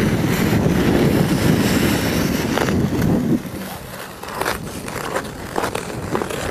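Ice skate blades gliding and scraping over thick, smooth lake ice: a steady rumble for about the first three seconds, then quieter with a series of sharp ticks.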